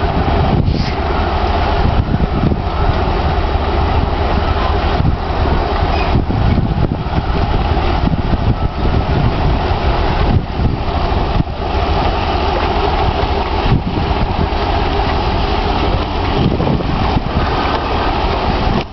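Crawler crane's heavy diesel engine running steadily as it hoists a swamped sailboat out of the water.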